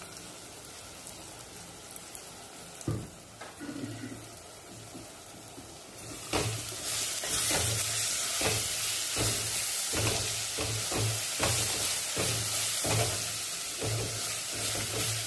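Onion, garlic and tomato masala sizzling in a clay pot while a wooden spatula stirs and scrapes it in repeated strokes. A single knock comes about three seconds in, and the sizzle and stirring grow louder about six seconds in.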